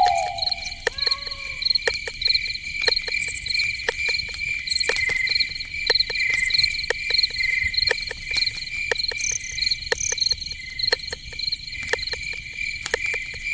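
Night forest ambience: insects chirping in steady, rapidly pulsing high tones that run throughout, over a scatter of sharp clicks and ticks. A short falling animal call sounds right at the start, with a couple of brief softer calls about a second in.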